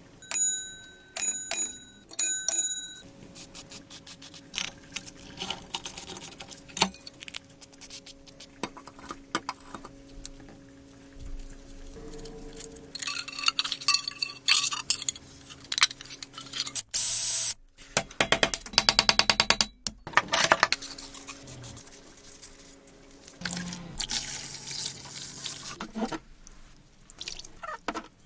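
A rusty electric bell's metal gong is struck about six times in quick succession at the start, each strike ringing on. Then comes a long run of small metal clicks and clatter as the bell's frame and parts are worked on with a tool. Near the end there is sloshing water.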